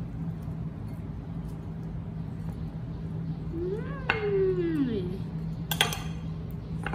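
A metal spoon clinks against a small ceramic plate as dragon fruit flesh is scooped onto it, with a sharp ringing clink about six seconds in. Midway, a voice gives one long sliding 'ooh' that rises and then falls.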